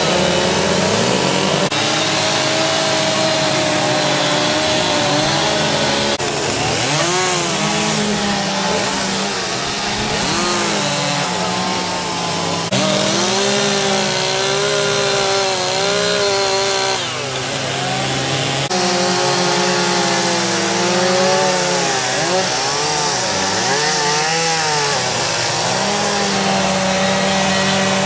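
Gasoline chainsaws running and cutting into blocks of wood during chainsaw carving. The engine pitch rises and falls repeatedly as the saws rev and bite into the cut, and the sound shifts abruptly a few times.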